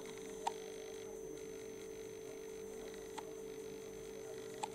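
Old British Railways 24-volt lamp inverter humming with a steady mid-pitched tone and a faint high whine above it while it powers a 26-watt low-pressure sodium (SOX) lamp through its warm-up. Three short sharp clicks break in: about half a second in, about three seconds in, and near the end.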